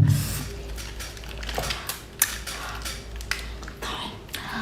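Close-up eating sounds of a mouth stuffed with a large mouthful of food: irregular wet clicks, smacks and crunches of chewing.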